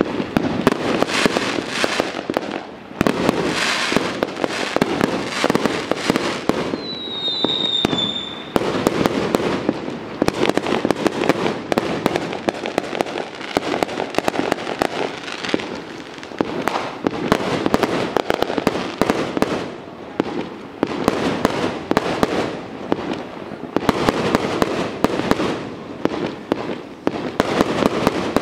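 Firecrackers going off in a dense, continuous crackle of rapid bangs, with a brief high whistle falling in pitch about seven seconds in.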